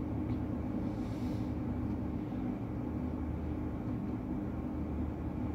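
A steady, low mechanical hum, with a faint brief rustle about a second in.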